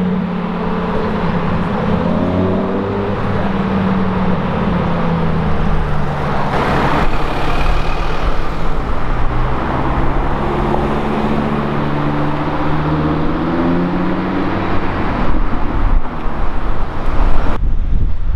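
Lamborghini Gallardo V10 engine pulling away, its note rising as it speeds up, over city traffic noise. After a cut, a second-generation Audi R8 V10 drives past with its engine note climbing again. Near the end, wind buffets the microphone.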